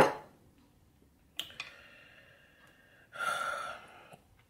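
A glass clinks about a second and a half in and rings briefly. Near the end of the ringing comes a short breathy sound from the eater, right after a drink.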